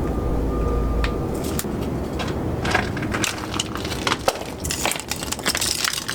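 A vehicle's low steady hum cuts off about a second in, then irregular crunching and crackling, like boots stepping through snow.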